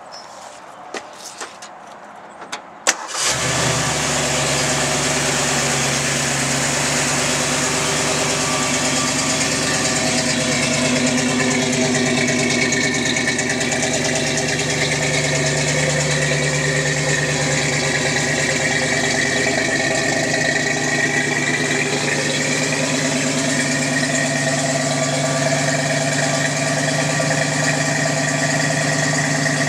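A newly installed Jasper remanufactured Ford 302 small-block V8 in an early Ford Bronco starts up about three seconds in after a few clicks, then idles steadily.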